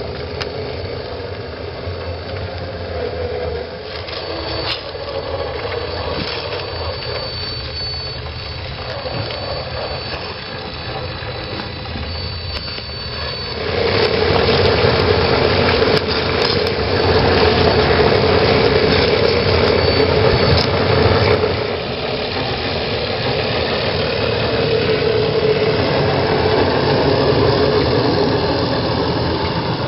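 1/10-scale Land Rover Defender D110 RC crawler driving along a dirt trail, its motor and geared drivetrain running steadily. A thin high whine is heard through the first half. The drive gets louder for about eight seconds past the middle, with scattered sharp clicks as the tyres roll over twigs and pine needles.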